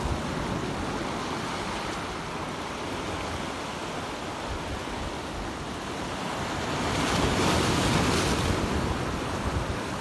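Sea waves washing and breaking against the rock boulders of a breakwater: a steady surf wash that swells louder about seven seconds in, with wind buffeting the microphone.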